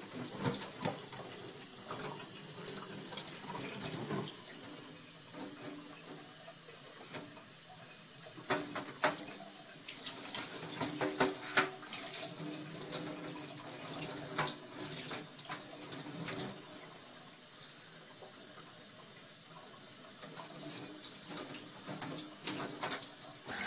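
Kitchen faucet running a thin stream into a stainless-steel sink, with irregular splashes and patters as a cat paws at and drinks from the water.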